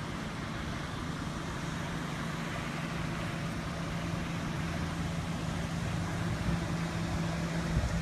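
A motor vehicle engine idling with a steady low hum that stops near the end, over a steady hiss from the rain-soaked street.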